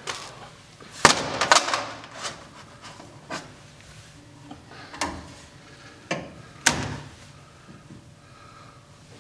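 Stacks of flat steel parts set down and shifted by hand on a stainless-steel machine table, giving a series of sharp metal clanks and knocks, loudest in a quick cluster about a second in and again near seven seconds.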